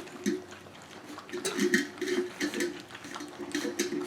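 Several puppies lapping and slurping milk replacer from a dish: quick, irregular wet licking and smacking sounds.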